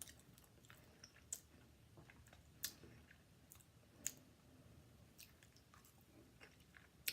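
Quiet mouth sounds of a person chewing soft canned mussels in marinade: faint wet smacks and a few short sharp clicks spread through, about one every second or so.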